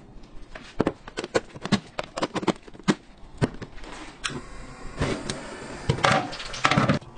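Kitchen handling noise: a string of sharp knocks and clacks, then a longer stretch of clattering and scraping, as plastic food tubs and a large aluminium pot are handled.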